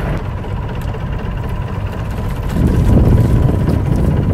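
Steady low rumble of an idling boat engine mixed with wind on the microphone, with a thin steady whine over it; the rumble swells for about a second past the middle.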